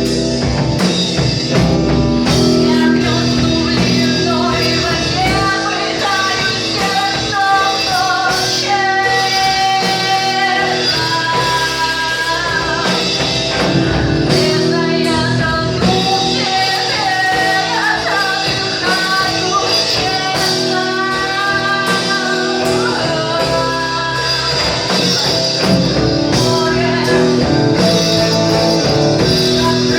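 A song: a singing voice over full instrumental backing, loud and continuous.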